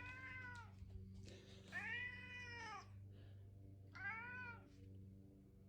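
Domestic cat meowing three times, each call rising and then falling in pitch: complaining for food at an automatic feeder that has not yet dispensed.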